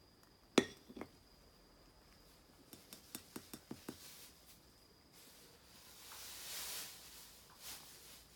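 A sharp knock as a white plastic food bowl is set down on a wooden floor, then a lighter knock, followed by about seven quick light clicks of the bowl being handled. A soft rustle swells and fades a few seconds later.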